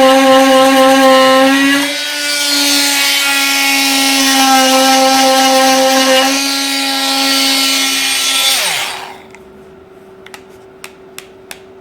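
Milwaukee M12 (C12 MT) 12-volt cordless oscillating multi-tool running at full speed with a loud, steady, high hum; from about two seconds in its blade is cutting, adding a hissing rasp. Near the end it is switched off and winds down in pitch, followed by a few faint clicks.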